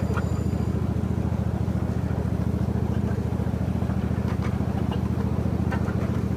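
Engine of a miniature park train running steadily with a fast, even low throb, heard while riding, with a few light clicks.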